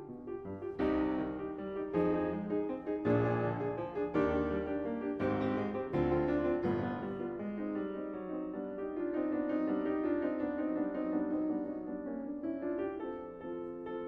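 Background music led by piano, with chords struck about once a second, giving way to softer held notes in the second half.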